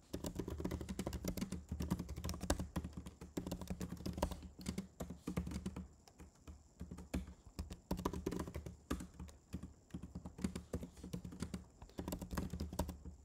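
Typing on a computer keyboard: quick runs of keystroke clicks with short pauses between them, as a line of code is entered.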